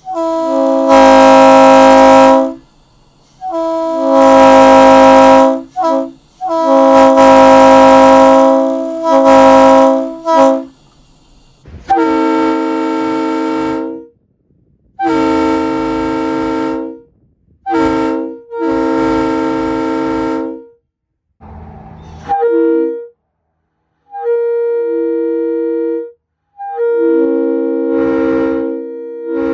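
Leslie RS3L three-chime train horn blowing a series of blasts, its bells sounding together as a chord. Four long, very loud blasts in the first ten seconds or so, then several somewhat quieter ones, and near the end shorter, uneven blasts with fewer notes sounding.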